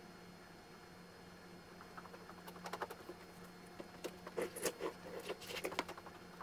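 A low steady hum, then from about two seconds in a run of irregular small clicks and rustles.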